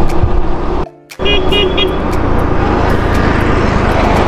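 Steady road noise and wind rumble from riding along a highway. It cuts out abruptly for a moment about a second in. Just after, a vehicle horn gives three short toots.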